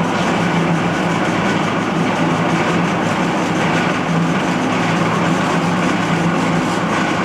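Marvel Series 8 Mark I 18 x 20 inch vertical band saw running steadily with its 1-inch blade moving, a loud, even machine hum with a few constant tones.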